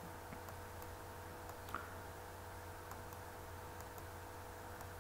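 A soft computer-mouse click a little under two seconds in, over a faint, steady electrical hum.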